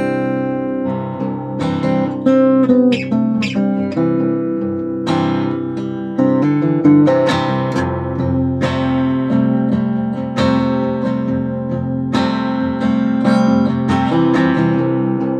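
Acoustic guitar fingerpicked, a run of plucked notes ringing over one another.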